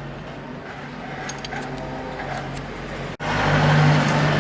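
A car engine idling steadily, with a few faint light clicks. About three seconds in the sound drops out for an instant and comes back louder.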